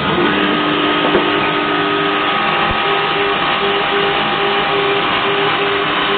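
Large three-axis CNC machining center running: a steady mechanical hum and hiss with a few steady whining tones, joined about three seconds in by a tone that pulses on and off in an even rhythm.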